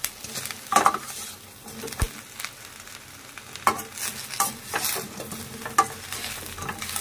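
Perforated steel skimmer ladle stirring and tossing deep-fried cabbage balls with onion and capsicum in a hot steel pan, with irregular scrapes and clinks of metal on metal over a steady sizzle of frying.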